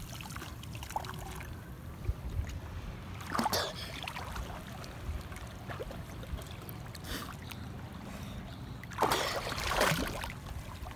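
Shallow sea water splashing and sloshing as people wade and move their arms through it, over a steady low rumble. A louder splash comes about three and a half seconds in, and another near the end.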